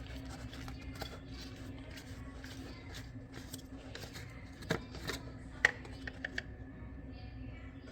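Light clicks and knocks from handling the oil filter housing cap as it is unscrewed by hand and lifted off, over a steady low hum. A few sharper clicks come in the second half.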